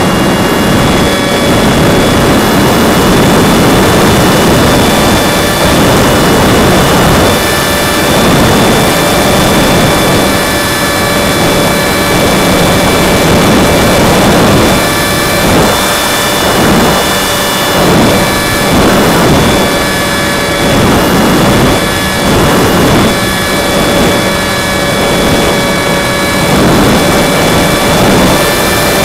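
Wind rushing and buffeting over the onboard camera's microphone of a Go Discover FPV model plane in flight, swelling and easing every couple of seconds, with the steady high whine of its upgraded electric motor and propeller running underneath.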